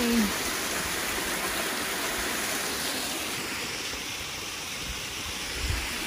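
Steady rushing of a waterfall's falling water, an even noise without any tone in it, with a few low bumps near the end.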